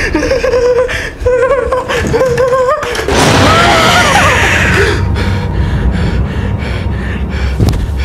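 A frightened human voice, with wavering cries for the first three seconds, then a loud harsh scream-like shriek from about three seconds in that fades after a couple of seconds, over a low rumble. A sharp hit comes near the end.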